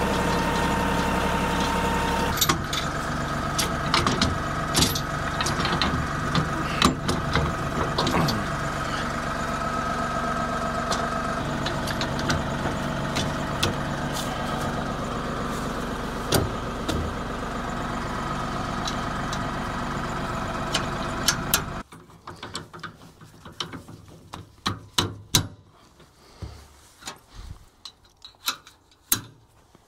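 LS compact tractor's diesel engine idling, with frequent metal clanks and rattles as a bush hog is wrestled onto the three-point hitch. About 22 seconds in the engine sound cuts off suddenly, leaving scattered metallic knocks and clicks.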